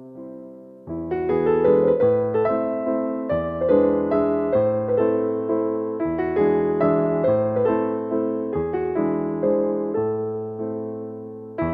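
Soft piano music, notes struck and left to ring and fade, a new phrase starting about a second in.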